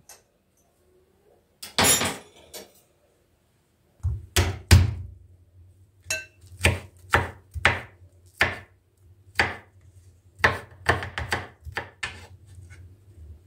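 Knife chopping on a cutting board: a single clatter about two seconds in, then from about four seconds in a run of sharp chops at an uneven pace of one or two a second, with a low steady hum underneath.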